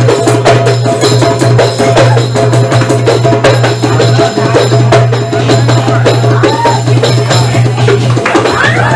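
Live Middle Eastern band music: rapid hand-drum beats over a steady low keyboard tone, with oud.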